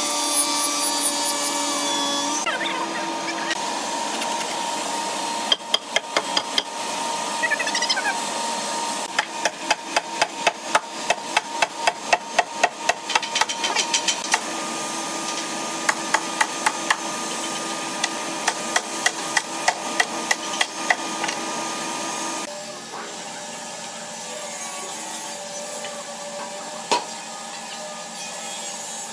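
An angle grinder running a sanding disc along the edge of a wooden board stops about two seconds in. A few knocks follow, then a fast run of hammer blows about four a second, and slower spaced blows over a steady hum.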